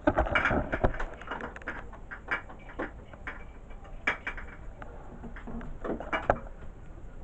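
A screwdriver unscrewing the screws of a wall light switch: an irregular run of small clicks and scrapes of metal on plastic, busiest in the first second and again near six seconds in.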